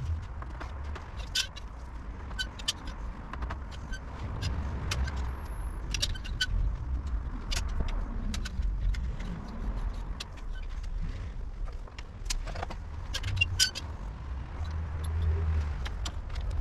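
Scattered light metallic clicks and taps from hand tools and bicycle parts being handled during a repair, over a steady low rumble.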